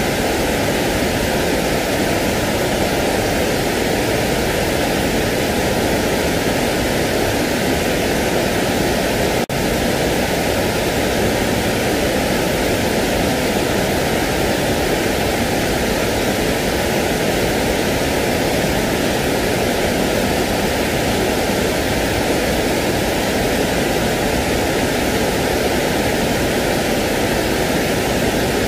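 Steady, even rushing noise, a sleep noise played to settle a crying baby, unchanging except for a very brief dropout about nine and a half seconds in.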